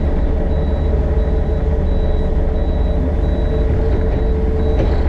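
Excavator's diesel engine running steadily at working speed, with a faint high tone pulsing on and off above it.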